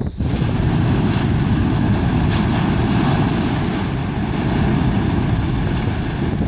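Yasur volcano in a strombolian eruption: the vent blasts off abruptly just after the start and then keeps up a loud, steady rushing of gas jetting out lava fragments and ash.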